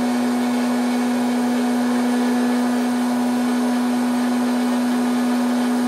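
Silvercrest 1200 W hot-air popcorn maker running, its fan blowing with a steady hum while the kernels heat before any have begun to pop.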